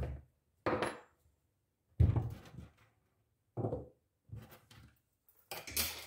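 Tools and a coil of metal wire being handled and set down on a wooden tabletop: a string of separate knocks and clatters, the loudest about two seconds in.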